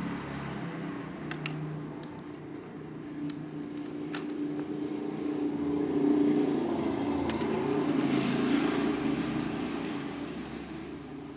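A passing road vehicle's engine, growing louder over several seconds and then fading away. There are a couple of small clicks about a second and a half in.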